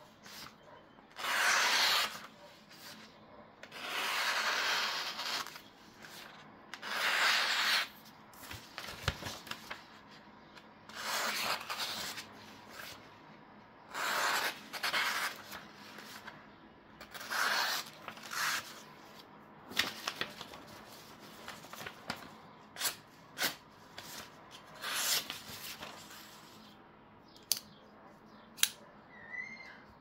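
Vosteed Raccoon folding knife's 14C28N blade slicing through a sheet of printer paper, about eight rasping cuts each lasting up to a second or so, with paper rustling between them: a paper-cutting sharpness test. A few sharp clicks near the end.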